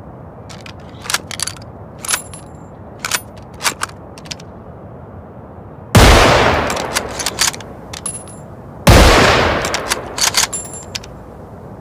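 Remington Model 700 bolt-action rifle: a series of sharp metallic clicks as the bolt is worked, then two loud shots about three seconds apart, each trailing off into a long echo, with more bolt clicks between and after them.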